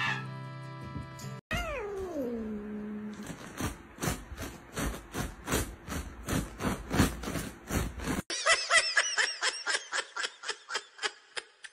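A domestic cat gives a long meow that falls in pitch, about a second and a half in, with background music.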